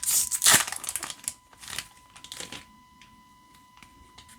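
Plastic booster-pack wrapper crinkling and tearing as it is opened. The crackle is loudest in the first second or so and dies away after about two and a half seconds.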